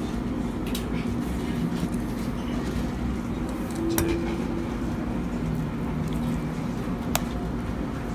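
Steady low background hum and hiss, with two sharp clicks, about four seconds in and again near the end.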